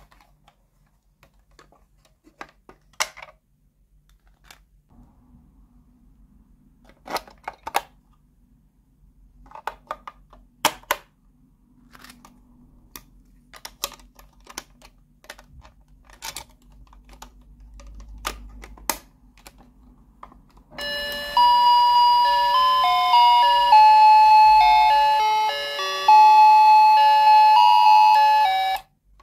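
Plastic clicks and taps as a toy microwave and its battery cover are handled, then the toy's sound chip plays a loud tinny electronic tune of stepped notes in two phrases for about eight seconds, cutting off suddenly near the end.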